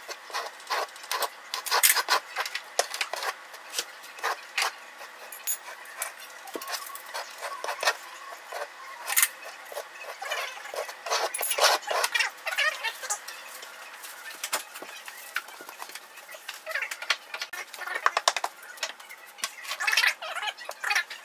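Steel trowel spreading and scraping tile mastic on the wall for a hexagon mosaic backsplash: an irregular run of short scrapes and clicks.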